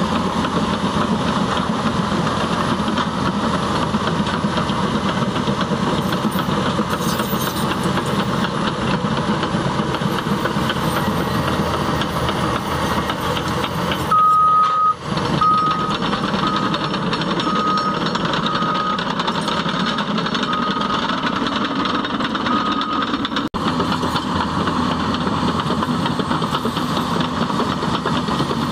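Caterpillar D6T bulldozer's diesel engine running steadily at work. About halfway through its reversing alarm sounds, a string of high beeps a little under a second apart that fade out over several seconds.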